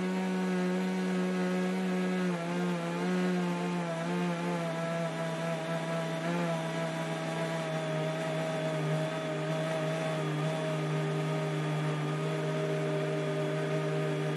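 Countertop kitchen blender motor running, liquidising bitter leaves with a little water. Its pitch drops slightly about two seconds in and wavers for a few seconds, then holds steady until the motor is switched off near the end.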